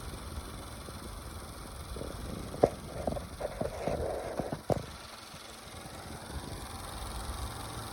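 Small battery/AC portable desk fan running with a low hum. For about three seconds in the middle, a run of irregular clacks and knocks is heard: the clacking this unit makes, which the owner finds irritating.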